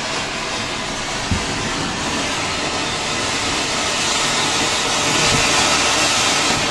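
Colour koti sunflower ground fountain firework, a Sivakasi flower-pot type, spraying sparks with a steady rushing hiss that grows louder in the last few seconds. A single sharp pop comes about a second and a half in.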